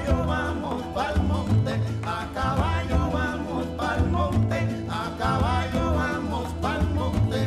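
Latin-style dance music with a strong, rhythmic bass line and a melodic lead.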